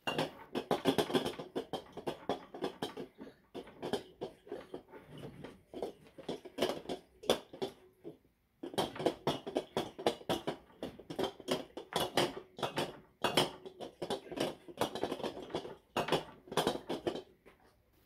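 Sealed fridge compressor shaken and tipped by hand: the motor inside bangs around on its springs against the steel casing, giving irregular rattling knocks with a short pause about eight seconds in.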